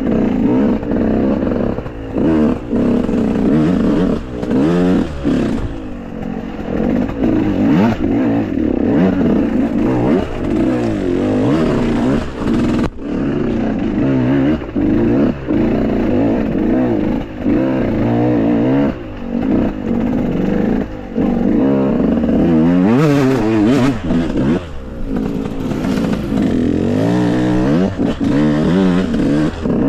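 Enduro motorcycle engines revving up and down again and again, the pitch rising and falling every second or two.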